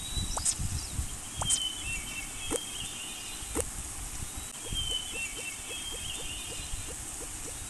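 Animal and bird calls: warbling chirps and several sharp falling whistles over a low rumble, with a quick run of short, evenly spaced calls, about five a second, in the second half.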